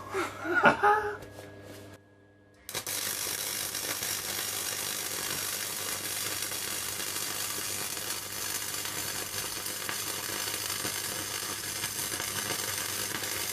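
Gasless (flux-core) MIG welder arc running a weld bead: a steady crackling sizzle that starts suddenly a few seconds in, runs for about ten seconds and cuts off sharply when the trigger is released.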